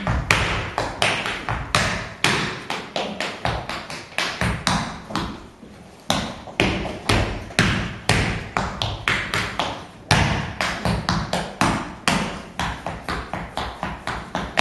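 Tap shoes striking a stage floor in fast, rhythmic tap-dance patterns, several dancers tapping together. The tapping thins and fades about four to six seconds in, then comes back sharply with a loud strike.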